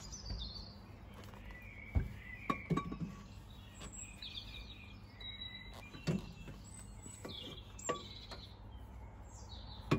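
Scattered light metallic knocks and clicks from hand work on a power steering pump and its fittings in the engine bay, with faint birdsong in the background.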